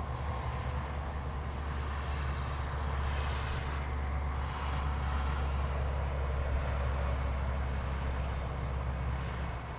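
Low, steady rumble of a motor vehicle's engine running on the nearby road, with a short hiss of passing tyres partway through; the rumble eases off near the end.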